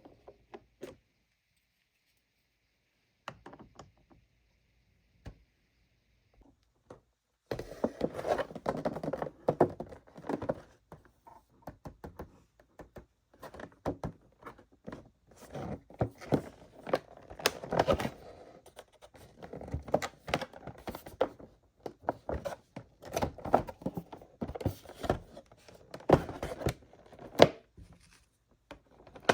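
Hard plastic toy parts and packaging being handled: a quick run of clicks, taps and knocks with crinkling and rustling. It starts about seven seconds in, after near silence.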